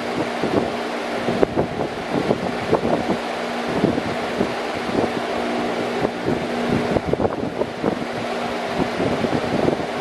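Metal-caged electric floor fan running steadily: a rush of moving air over a constant low hum, with uneven gusts of its airflow buffeting the microphone.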